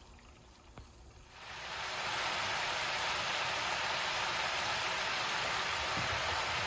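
Chicken pieces deep-frying in oil at about 365–375°F in an electric deep fryer: a steady sizzling hiss. It is faint at first, swells up loud about a second and a half in, then holds steady.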